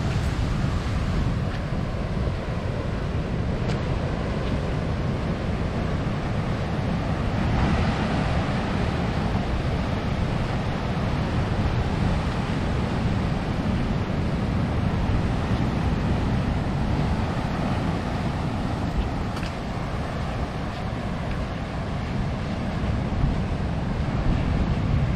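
Ocean surf breaking and washing up the beach in a steady wash of noise, with wind buffeting the microphone in a low rumble.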